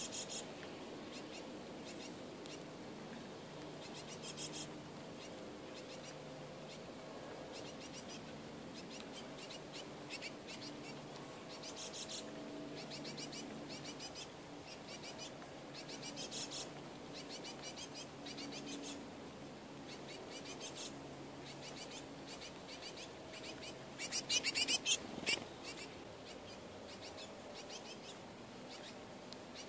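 Great tits calling in short, rapid chattering bursts, repeated a dozen or so times, with the loudest burst a few seconds before the end. A steady low background hum runs underneath.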